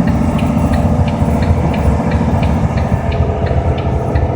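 Steady low engine and road rumble heard inside a slowly moving vehicle, with a regular light ticking about three times a second.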